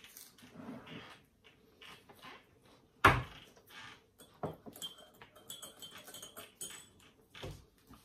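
Table sounds during a meal: forks and cutlery clicking and tapping on plates and dishes. There is one loud sharp knock about three seconds in.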